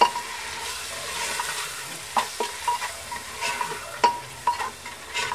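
Onions, ginger-garlic paste and nihari spice powder sizzling in hot oil in a pressure cooker while being stirred. The stirring utensil knocks and scrapes against the pot in short irregular strokes, several a second, from about two seconds in.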